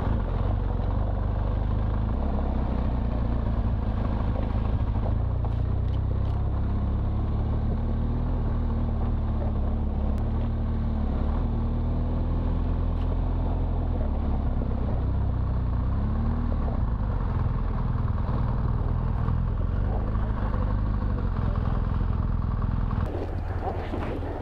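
BMW R1200 GS Adventure's boxer-twin engine running steadily as the motorcycle rides along a gravel dirt road, with heavy low rumble and road noise. Near the end the sound drops as the bike slows to a stop.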